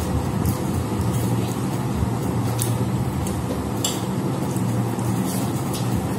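Steady low background hum, with scattered soft clicks and smacks of people eating rice and curry with their hands from steel plates.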